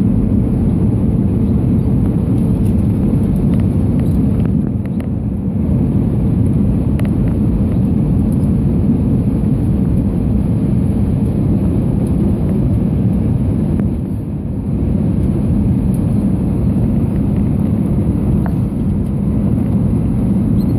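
Steady cabin rumble of an Airbus A319-112 on approach, heard from a window seat over the wing: airflow and the CFM56 engines. The level eases briefly twice, about five seconds in and again near the middle.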